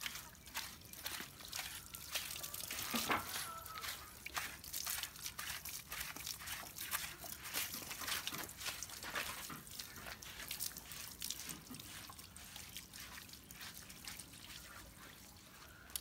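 Water splashing and dripping in many small irregular spatters as a dog is washed.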